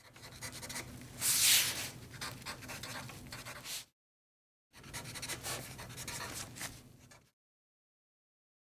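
Pencil scratching on paper, a writing sound effect in two passes: about four seconds of scribbling with a louder quick stroke just over a second in, a short break, then about two and a half seconds more that stop suddenly.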